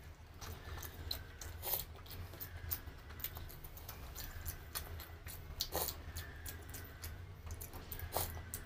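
Close-up chewing of a mouthful of rice and curried boiled egg: irregular wet mouth clicks and lip smacks over a steady low hum.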